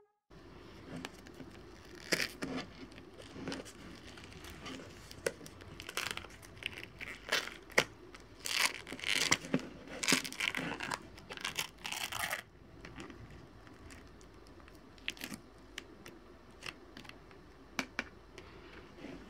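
Thin plastic slime tub and its lid being handled and pried open: irregular crinkling and crackling plastic for about ten seconds that stops abruptly, then a few light clicks.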